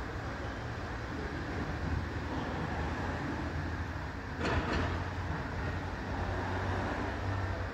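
Steady low background rumble with an even hiss, broken by a brief double clatter about four and a half seconds in.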